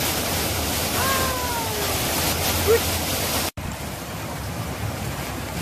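Steady rushing of water pouring over a river weir, with a short falling call about a second in. After a sudden cut, quieter water runs through a concrete channel.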